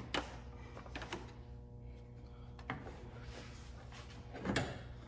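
Faint, sparse clicks and knocks of hands and a small flathead screwdriver working at plastic wiring-harness connectors behind a car headlight, over a low steady hum, with a louder short scuffle about four and a half seconds in.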